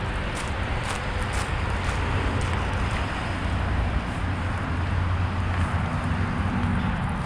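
A car passing on a street: a steady engine and tyre rumble that swells through the middle, with a few light footsteps over the first two seconds.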